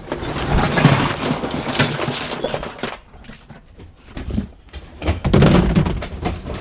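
Hand tools being rummaged through and handled: rustling with clinks and knocks, in two busy spells, the first lasting about three seconds and the second starting about five seconds in.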